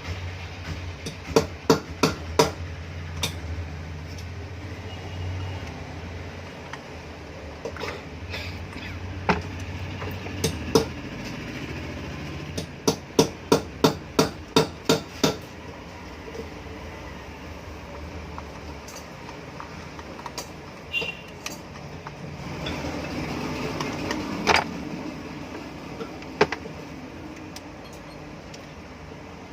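Hammer tapping on ceiling fan motor parts in bursts: a few strikes about a second in, a quick run of about eight strikes midway, and scattered single knocks after. A low hum fades out about ten seconds in.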